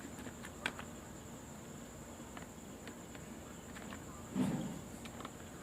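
A few scattered laptop key clicks, as a password is typed in, over a faint steady high-pitched whine. A brief low sound comes about four and a half seconds in.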